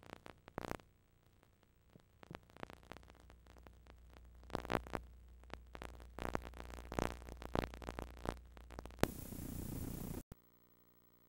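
Videotape playback noise at the end of a recording: scattered crackles and clicks over a low hum, then about nine seconds in a loud burst of hiss that cuts off abruptly, leaving faint steady electrical tones.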